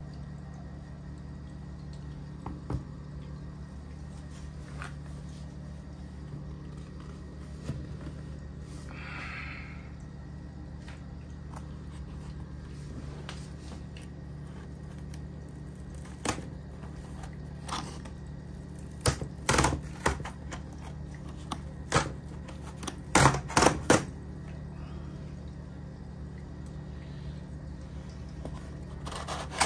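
Cardboard shipping box being handled and its tear strip ripped open: scattered taps and scrapes, then a run of short, loud tearing and knocking sounds about two-thirds of the way in, over a steady low hum.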